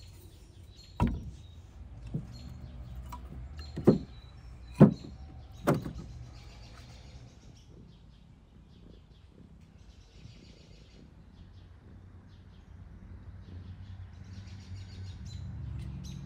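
Split firewood logs being set down and stacked on a concrete slab: five sharp wooden knocks spread over the first six seconds, then quiet.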